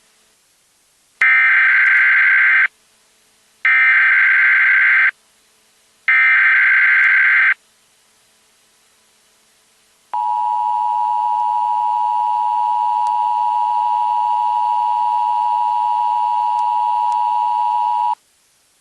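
Emergency Alert System alert opening: three bursts of SAME header data tones, each about a second and a half with a second's pause between, then the steady two-tone EAS attention signal held for about eight seconds before cutting off.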